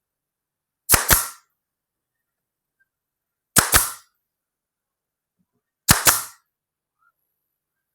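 Nails being driven into pallet wood: three sharp double strikes about two and a half seconds apart, each with a brief metallic ring.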